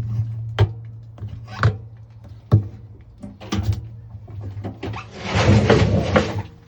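Washing machine running with a steady low hum, its drum giving sharp knocks about once a second, then a louder rough rumble for over a second near the end.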